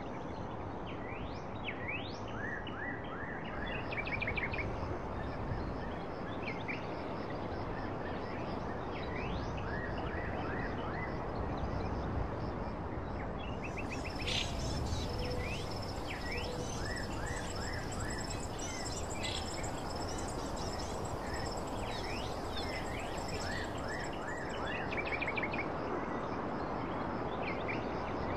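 Small birds chirping and trilling again and again over a steady rushing background noise, with a thin steady high tone from about halfway through.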